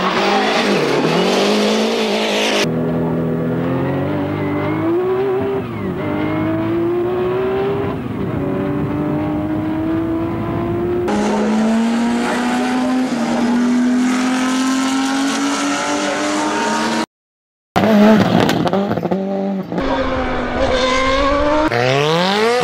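A montage of race car engines at speed, a Lancia Delta rally car and a Porsche 917K among them, each revving up through the gears with the pitch climbing between upshifts. The clips cut abruptly from one car to the next, with a brief silent gap about three quarters of the way through.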